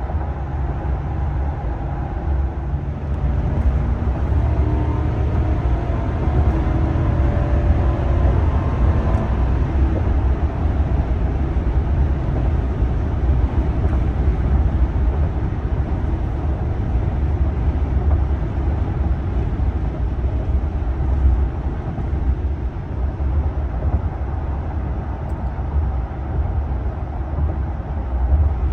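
Cabin noise of a 2023 Ram 1500 Limited pickup under way: a steady low rumble of road and tyre noise with the 5.7L HEMI V8 running underneath, and a faint rising engine tone between about three and nine seconds in.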